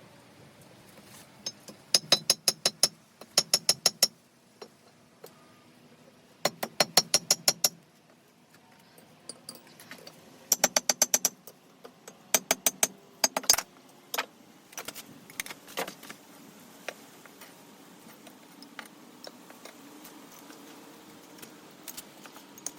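Hand hammer striking hot steel on an anvil while forging a bolt into an arrowhead: quick runs of about five or six ringing blows a second, in five bursts over the first fourteen seconds, then lighter scattered taps. A faint steady hum rises in the second half.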